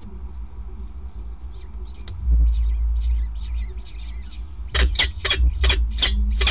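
Downy peregrine falcon chicks food-begging: faint scattered high peeps, then about two-thirds of the way in a run of loud, shrill calls about four a second as the adult feeds them. A steady low rumble lies underneath.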